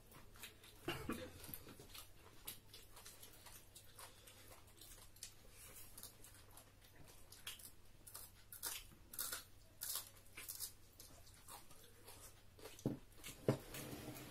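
Close-range eating sounds of people eating a rice meal by hand: a steady string of small chewing clicks, lip smacks and crunches, with a couple of louder knocks near the end.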